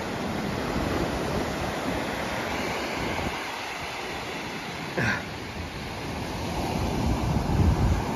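Ocean surf washing onto a sandy shore, a steady wash of small breaking waves that swells again near the end, with wind gusting on the microphone. A brief high-pitched sound cuts through about five seconds in.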